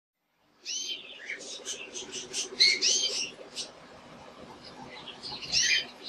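Male domestic canary singing: a run of quick chirps and curving whistled notes starting about half a second in, a quieter stretch, then another short loud phrase near the end.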